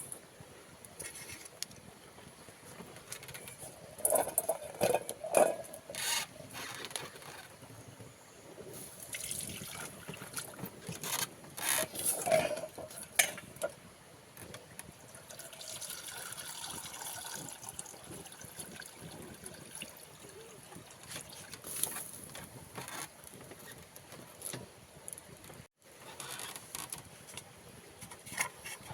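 Camp-kitchen handling: scattered knocks and clinks of pots and utensils, with water poured and sloshing for a stretch in the middle.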